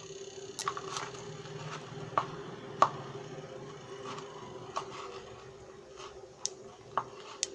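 Cumin seeds crackling in hot oil in an electric kettle: scattered sharp pops at irregular intervals, the loudest nearly three seconds in, over a faint steady hum.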